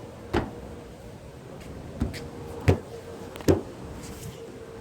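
Four sharp knocks or clicks at uneven intervals, the last two loudest, over a faint steady hum.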